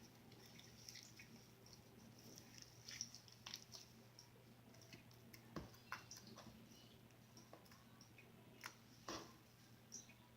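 Glossy slime being squished and pressed by hand: faint, scattered sticky clicks and squishes, with a few louder pops about three seconds in, around the middle and near the end.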